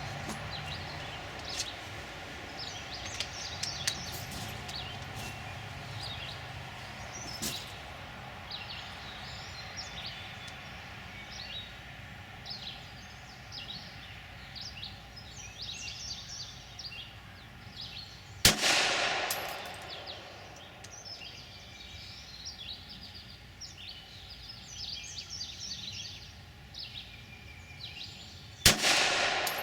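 Two shots from a Glock 26 9mm pistol, about ten seconds apart, one roughly two-thirds of the way in and one near the end, each followed by a fading echo. Birds chirp in the background.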